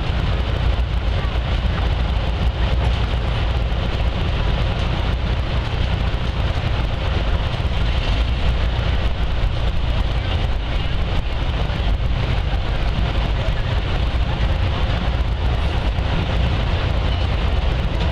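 Steady low rumble of wind buffeting the microphone, over an even outdoor background hiss with no distinct events.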